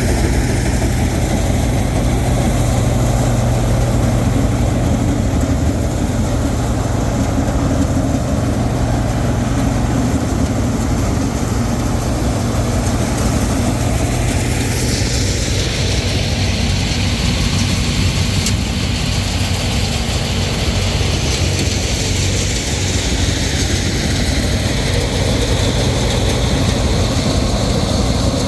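Rice combine harvester running steadily, a constant low engine hum under a broad mechanical din; about halfway through a higher hiss comes up and stays.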